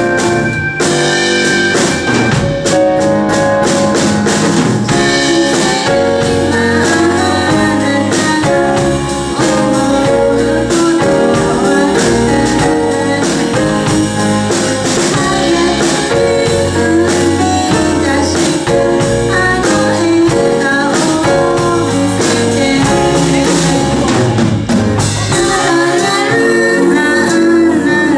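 Live band accompanying a pop song, with drum kit, bass and guitar keeping a steady beat. The drums drop out near the end, leaving guitar and held chords.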